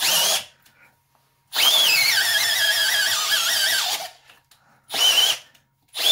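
Milwaukee M12 Fuel cordless drill boring into wood with a Hercules auger bit in stop-start trigger pulls: a short burst, one of about two and a half seconds, another short burst, and a new one starting at the end. The motor whine wavers and sags as the drill strains under load, struggling because of a faulty grind on the Hercules bit's tip.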